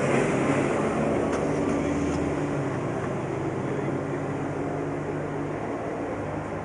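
Ferrari 599 GTO's V12 engine running at a steady low speed, its note slowly getting quieter.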